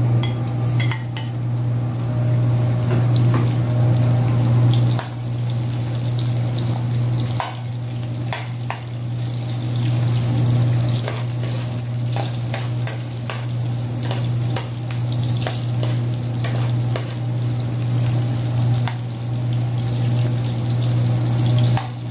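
Garlic and sliced onions sizzling in an aluminium frying pan, with a metal spoon clicking and scraping against the pan as they are stirred. A steady low hum runs underneath.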